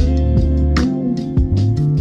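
Background instrumental music with a bass line and a steady beat.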